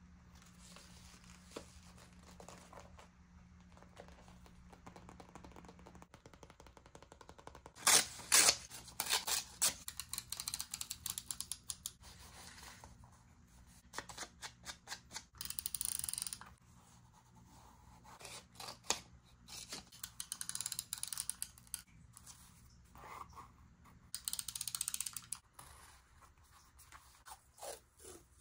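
Close-miked scissors and paper being handled for diary decorating: clusters of sharp clicks and snips, loudest about eight seconds in, with a few longer rasping strokes.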